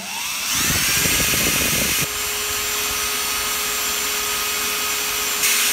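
Electric drill speeding up and boring into aluminium with a fresh bit that cuts in at once: rough cutting noise for the first couple of seconds, then a steady motor whine.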